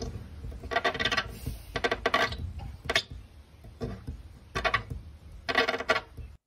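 A dog's open mouth and teeth rubbing and squeaking against a glass pane, in short pitched squeaks about once a second.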